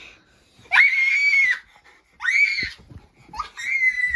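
A child screaming three times in a shrill, high voice. Each scream sweeps up sharply and then holds its pitch; the third is the longest and runs on past the end.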